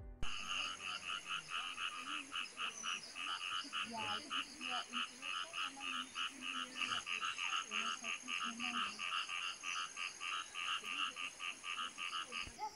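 A rapid pulsed animal call, about four pulses a second, repeating evenly over a steady high-pitched whine; it starts suddenly and cuts off near the end.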